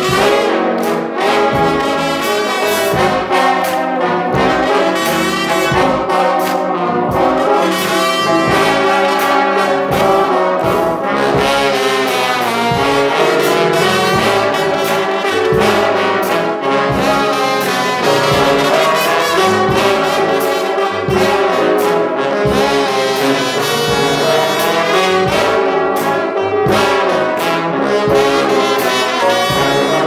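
Trombone-led gospel brass band, with sousaphone, drum kit and keyboard, playing an instrumental passage with a steady drum beat.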